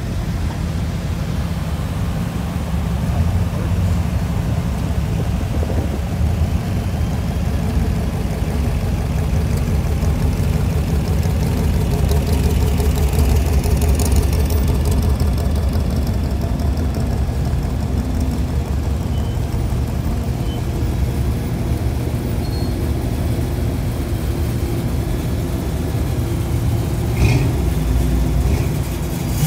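A car engine running, a steady low rumble.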